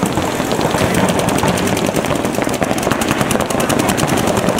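Paintball markers firing in rapid, continuous streams of shots, a fast even crackle that does not let up.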